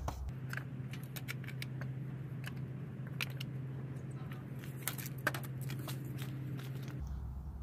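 Scattered light clicks and taps of hard plastic parts being handled, over a steady low hum that cuts in just after the start and stops abruptly near the end.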